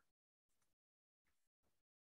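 Near silence, broken three times by very faint short noises.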